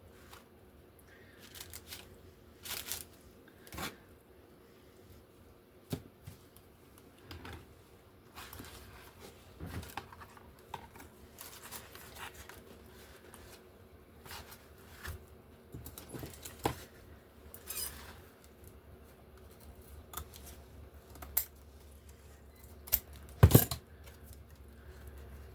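Scattered small clicks, taps and rustles of hands working with paper and craft tools on a tabletop, with one louder knock near the end.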